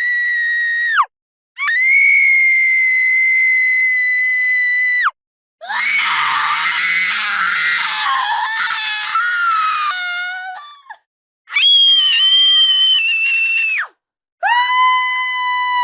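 A woman screaming: a run of long, high-pitched screams, each held for a few seconds and dropping in pitch as it cuts off, with short silences between. The middle scream is harsher and ragged, and the last one is lower.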